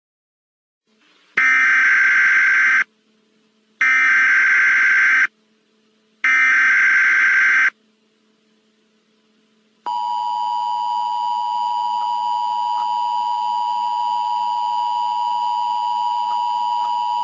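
Emergency Alert System tones: three short bursts of SAME header data, each about a second and a half long with short gaps between, then, after a pause, the steady two-tone attention signal.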